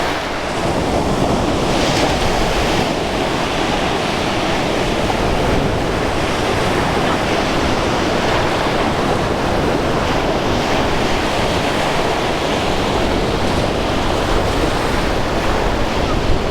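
Sea waves washing on the shore with wind buffeting the microphone: a steady rushing noise.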